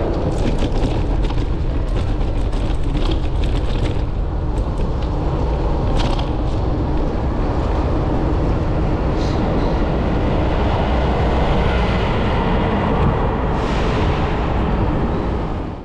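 Steady low rumble of wind and traffic noise on a moving camera's microphone, with a run of sharp clicks and rattles in the first four seconds and a few more later. It cuts off suddenly at the very end.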